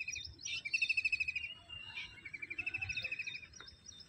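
Birds calling: a rapid trill repeated about once a second, with higher chirps over it.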